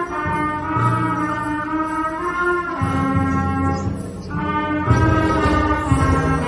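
School brass band playing a fanfare: sustained brass chords over low brass, with the low notes coming in strongly about three and five seconds in.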